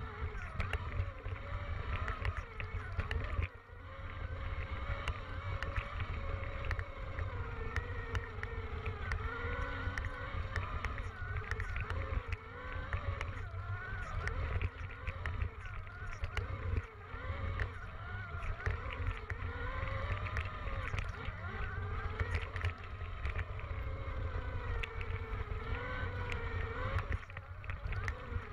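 Electric dirt bike riding over a rough dirt track: the motor and chain drive whine, rising and falling in pitch with the throttle, over a heavy low rumble of wind on the microphone and scattered knocks and rattles from the bumps.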